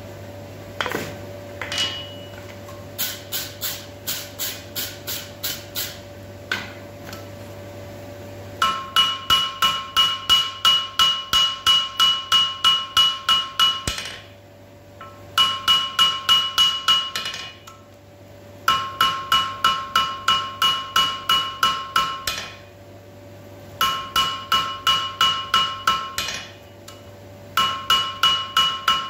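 Ball-peen hammer striking a red-hot steel railway spike on an anvil, drawing out a taper. After a few scattered blows, it comes in runs of a few seconds at about three blows a second with short pauses between, each blow making the anvil ring. A steady low hum sits underneath.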